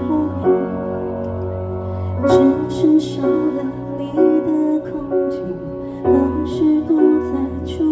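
Slow, soft instrumental introduction to a ballad played live, with keyboard chords over a held bass and a gently wavering melody line; fresh chords come in about half a second, two seconds and six seconds in.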